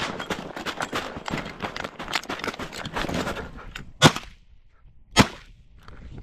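Footsteps crunching through snowy corn stubble, then two loud shotgun shots about a second apart.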